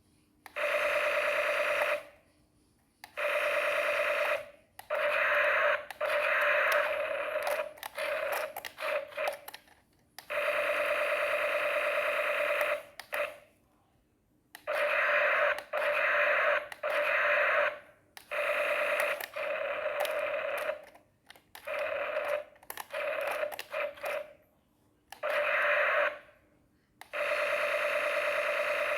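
A small electric motor whining steadily in on-off bursts of one to three seconds, stopping and starting about a dozen times, as a toy's motors are switched on and off.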